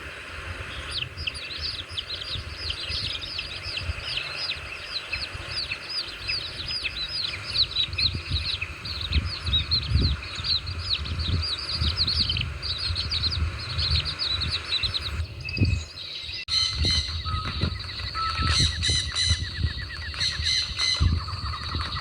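Birds chirping: a fast run of short, falling chirps, several a second. About fifteen seconds in it breaks off and a different set of higher, clearer calls and trills takes over. Low thumps run underneath.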